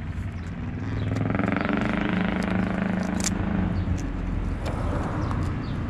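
Street traffic: a vehicle engine swells and fades as it passes, over a steady low engine hum. A few light clicks come from handling the plastic phone holder on the handlebars.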